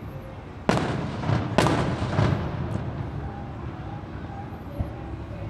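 Aerial fireworks shells bursting: two sharp booms about a second apart, each followed by a rumbling echo that fades within a second or so.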